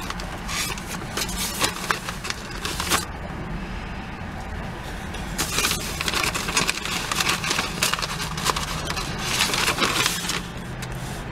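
Brown paper takeout bag rustling and crinkling as a hand rummages inside it, in three bouts of crackling with short pauses between, over a low steady hum.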